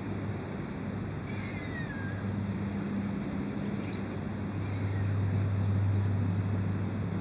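A steady low hum, like a distant motor, growing louder about five seconds in, under a thin steady high whine. A faint short falling chirp sounds about a second and a half in.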